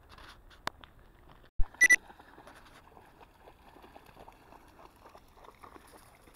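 A dull thump, then two quick high electronic beeps about two seconds in; faint crunching and rustling before and after.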